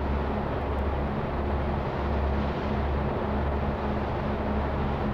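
Steady low rumble and hiss of a 1984 field tape recording made among Asian elephants, played at its original speed, with a wavering low hum underneath. The elephants' infrasonic calls on the tape lie mostly below the range of hearing.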